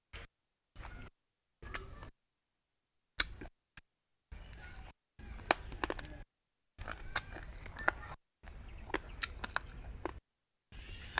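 A man chewing areca nut with betel leaf close to the microphone: crunching and sharp clicks in short bursts, broken by sudden silences.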